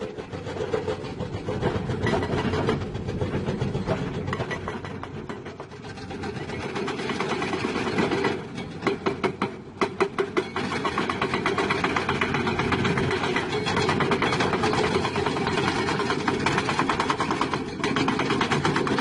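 Diesel engine of heavy construction machinery running steadily, with a run of sharp clanks about halfway through and a fast, even rattle after that.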